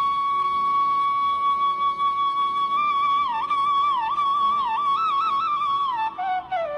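Background instrumental music: a single melody line holds one long high note for about three seconds, then moves through quick ornamented turns and steps lower near the end.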